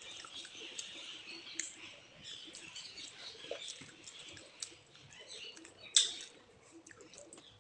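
Chicken masala sizzling and crackling in a pan, a light hiss with scattered small clicks, and one sharp knock about six seconds in.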